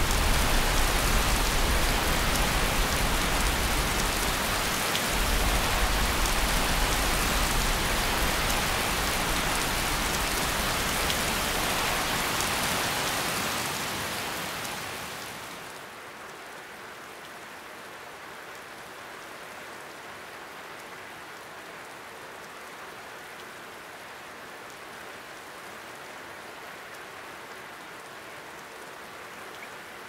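Heavy rain falling in a steady hiss, which drops to a much quieter, fainter hiss about halfway through.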